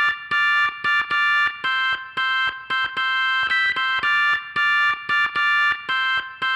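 Music of repeated electronic synthesizer chord stabs, sharp-edged and evenly rhythmic at about two to three a second, with the pitch shifting on a few notes.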